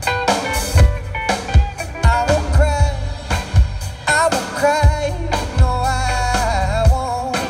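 Live rock band playing: a male lead vocal sung over electric guitars and a drum kit, with a steady kick-drum beat.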